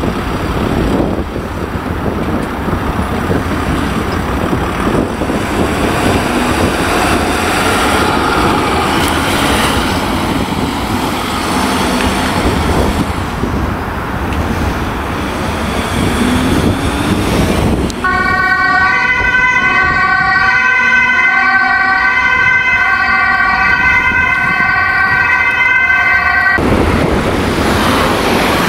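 Ambulance siren: a faint rising and falling wail mixed with wind and traffic noise. About two-thirds of the way through it gives way to a loud two-tone horn alternating high and low, which cuts off abruptly near the end, leaving road traffic noise.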